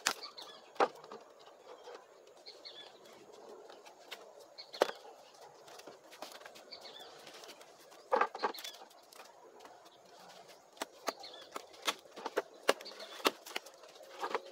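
Pieces of cut wood knocking and clattering as they are stacked and fitted into a charcoal kiln: irregular sharp knocks, a small cluster about eight seconds in and a quicker run near the end. Birds chirp faintly in the background.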